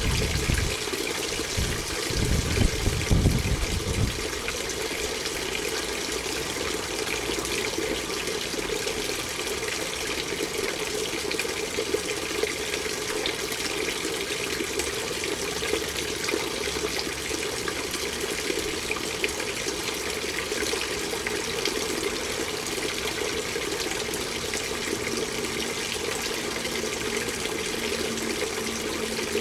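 Water from a garden fountain falling down a rounded wall in several small waterfalls, splashing steadily. A few low bumps sound in the first few seconds.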